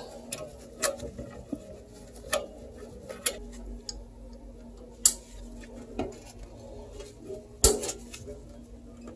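Scattered light clicks and taps of plastic and metal as a rear case-fan cable is gathered and tucked inside a PC case, with two sharper clicks about five seconds in and just before eight seconds.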